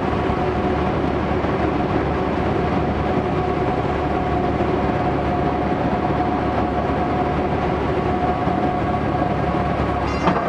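Steady cockpit noise of a Cessna 150 during landing and rollout: its four-cylinder Continental O-200 running throttled back under rushing air, with a steady whine. A short click near the end.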